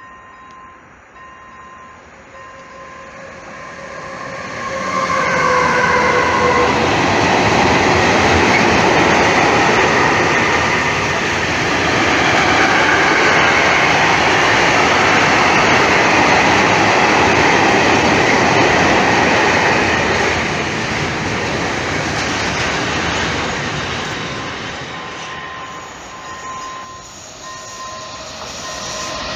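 A long freight train of tank wagons passes close by. Its wheels rumble and clatter on the rails, building from about four seconds in, staying loud through the middle and fading near the end. A short whine rises and falls as the head of the train goes by, and a faint repeating tone can be heard at the start and again near the end.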